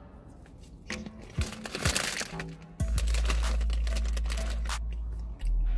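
Crisp crunching of cheese puffs being chewed in the first few seconds. From about three seconds in, background music with a loud, deep, steady bass comes in, and the bass note drops lower near the end.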